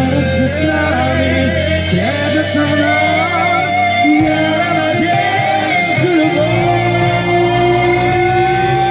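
Live rock band playing with a sung vocal line over guitar and bass; in the second half the singer holds one long note.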